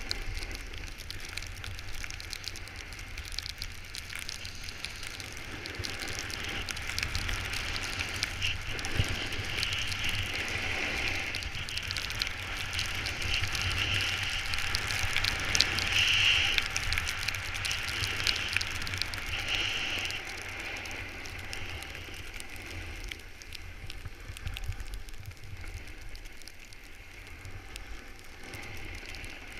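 Snowboard sliding and carving down packed snow: a scraping hiss that swells and fades with the turns, loudest in the middle stretch, over a low rumble of wind on the camera.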